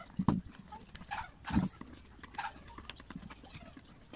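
Handling knocks as the metal body of a Makita electric planer is turned over and set against the work surface: two heavier thuds, about a quarter second and a second and a half in, with lighter clicks and clatter between.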